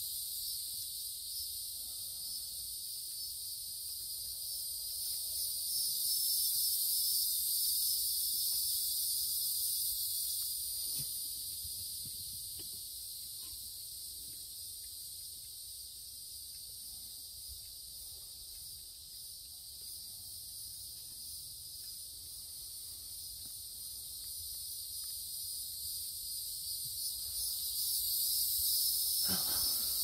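Chorus of many insects singing: a steady, high-pitched buzzing drone that slowly swells louder and fades back.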